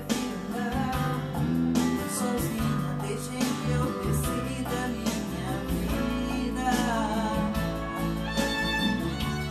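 A woman singing over music with guitar and a steady bass line.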